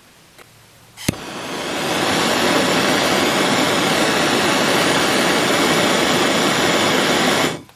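Gas torch lit with a sharp click, then a steady rushing flame that builds over about a second and holds for about five seconds before shutting off, heating a copper plumbing fitting and brass tube for soldering.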